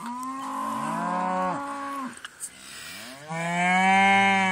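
A bull bellowing twice: a long call, then after a short pause a second, louder one.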